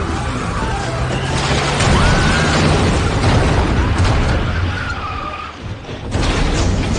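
Film sound effects of a box truck's brakes squealing and tyres skidding as it runs a person down, loud and dense. A second loud burst starts about six seconds in as the truck tips over.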